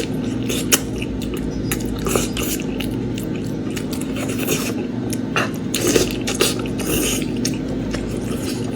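Close-miked eating sounds of lamb meat and beef trotters being chewed: irregular wet smacks, squelches and small clicks, over a steady low hum.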